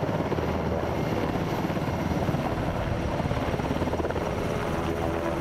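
A formation of UH-60 Black Hawk helicopters flying low, their rotors making a dense, rapid, steady chop. A steady whine joins the chop near the end.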